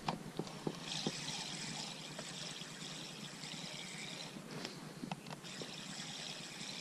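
Gentle water trickling and lapping at the boat, with a few light clicks scattered through.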